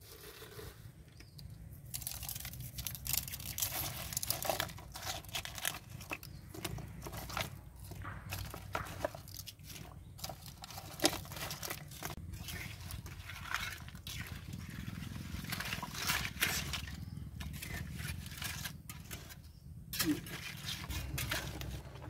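A wok of water boiling over a wood fire: a steady low rumble with many irregular crackles and clicks, starting about two seconds in.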